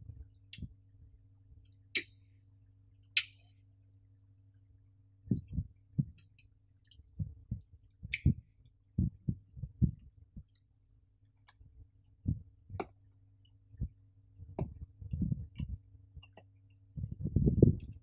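Sharp metallic clicks, three in the first few seconds and one more near the middle, as the wire fan clips of a Jonsbo CR-1000 tower CPU cooler are snapped onto its aluminium heatsink fins. Then dull knocks and handling thumps as the cooler is handled over the motherboard, over a faint steady hum.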